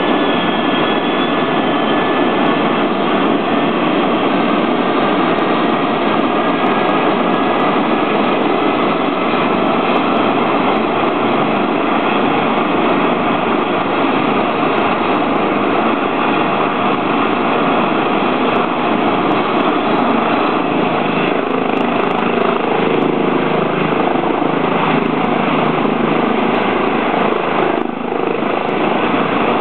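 Eurocopter EC135 twin-turbine rescue helicopter running on the ground with its main rotor turning: a steady loud rotor and turbine roar, with a high turbine whine that fades over the first ten seconds or so.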